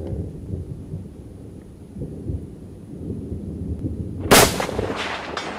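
A low, rolling rumble, then a loud sharp crack about four seconds in that rolls away over the next second, with a few weaker cracks in its tail.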